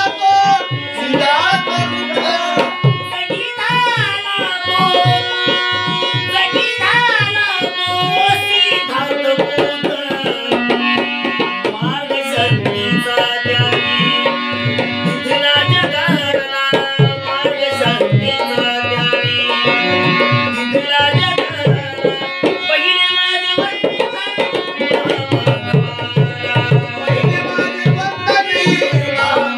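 Instrumental passage of a Marathi devotional song: tabla keeping a steady beat under a melodic lead instrument playing sliding, ornamented phrases.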